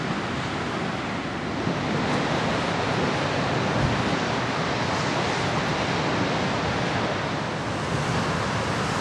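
Steady rush of Pacific Ocean surf along the shore, with wind, picked up through a camera microphone fitted with a makeshift wind screen.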